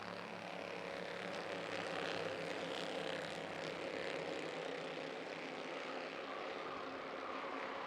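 A field of Bandolero race cars running under green, their small engines buzzing together in a steady drone that swells slightly as they pass.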